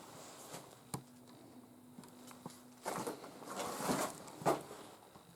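Scuffing and shuffling steps on a debris-strewn shed floor, with a sharp knock about a second in and a run of louder scuffs in the second half. A low steady buzz sounds for about two seconds in between.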